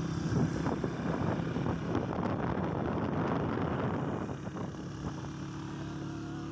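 Motorcycle engine running steadily while riding, mixed with wind and road noise.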